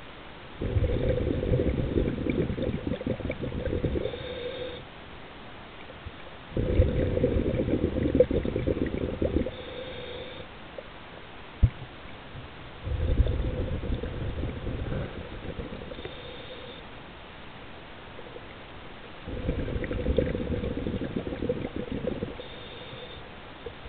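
Scuba diver's exhaled bubbles rumbling out of the regulator in four long bursts, about six seconds apart, each followed by a short high hiss. A single sharp click sounds about midway.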